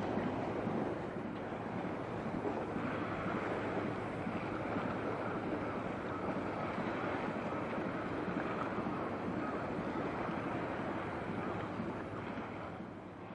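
Steady rushing of wind on the microphone mixed with water noise from the strait, easing a little near the end.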